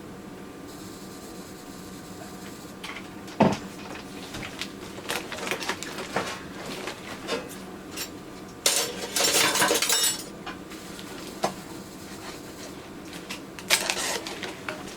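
Glass jars and metal clinking and knocking as they are handled, with one sharp knock about three seconds in and a dense rattling clatter lasting over a second near the middle.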